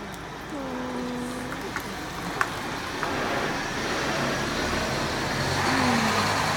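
Road traffic noise that grows louder through the second half, with a couple of short sharp clicks a couple of seconds in.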